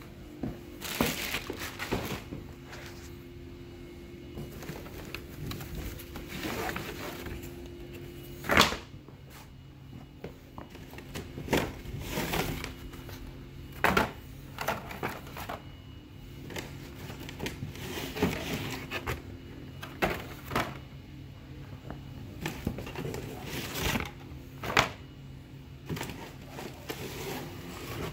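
Cardboard toy boxes being handled and shuffled by hand: irregular rustling and scraping with sharp knocks, the loudest about eight and a half seconds in, over a steady low hum.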